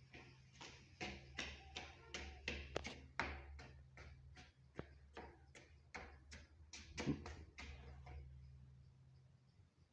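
Sandals slapping and scuffing on a concrete floor as someone walks about: quick, faint clicks about three a second that stop about eight seconds in, over a faint steady low hum.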